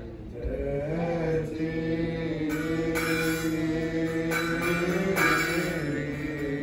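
Church hymn chanted in unison, with long held and slowly bending notes. From about two and a half seconds in, metal percussion clashes along with it in a steady beat.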